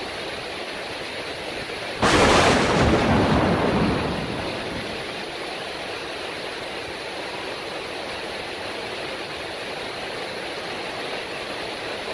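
Heavy rain falling steadily. About two seconds in comes a sudden loud thunderclap, which fades back into the rain over about two seconds.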